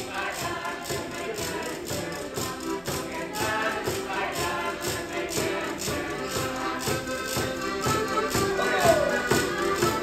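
Lively traditional Madeiran folk-dance music with a quick, steady percussion beat of about four strokes a second.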